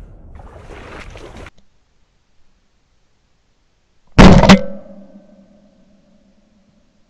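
Brush rustling as someone pushes through thick cutover, stopping about a second and a half in. After a pause, a single very loud gunshot about four seconds in, with a short echo and a faint hum trailing off after it.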